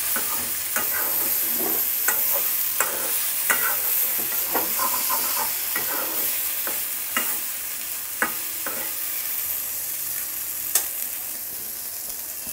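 Fish vorta sizzling as it fries in a black wok on a high gas flame, with a wooden spatula scraping and knocking against the pan as it is stirred. The strokes stop about three-quarters of the way through, leaving only the steady sizzle.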